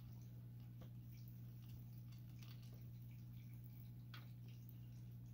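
Near silence over a low steady hum, with a few faint scattered clicks as a rabbit eats pellets from a plastic treat-puzzle tray and nudges its cones.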